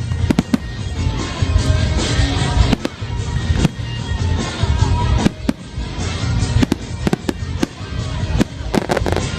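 Fireworks display: a rapid, irregular string of sharp bangs and cracking reports over deep booms. Music plays alongside.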